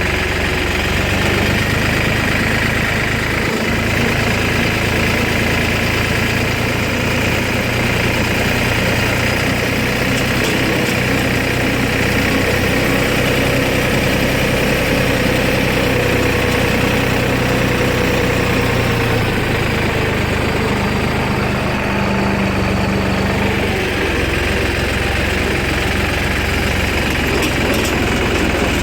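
An engine running steadily at low speed, its note shifting slightly about two-thirds of the way through.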